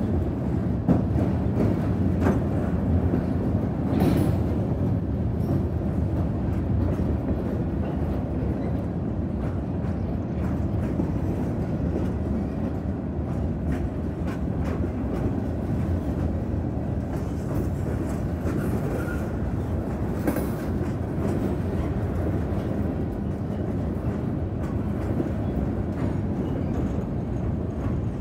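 Freight cars rolling past at a crossing: a steady low rumble of steel wheels on rail with scattered clicks and clanks, a few sharper ones in the first few seconds.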